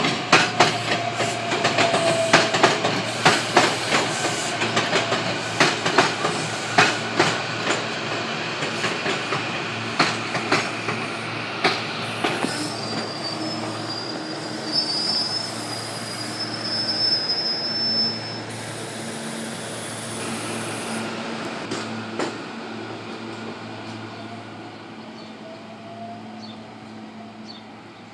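SEPTA Silverliner electric multiple-unit train rolling past, its wheels clicking rapidly over the rail joints. A high wheel squeal sounds in the middle, and then the sound fades as the train pulls away.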